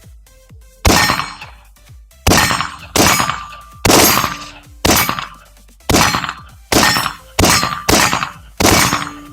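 AR-15 rifle firing 5.56 rounds: about ten single shots at an uneven pace, roughly one a second, each followed by a ringing tail. Faint electronic music plays underneath.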